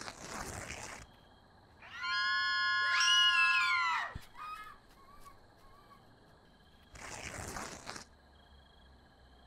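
Horror sound effects: a whoosh, then a loud, high, shrill cry lasting about two seconds that plunges in pitch at its end, followed by a second whoosh near the end, over a faint steady high chirring.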